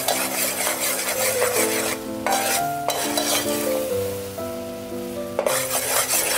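Thick sauce sizzling and bubbling in an aluminium pot while a metal spoon stirs and scrapes through it. The hiss breaks off briefly twice, about two and three seconds in, over background music.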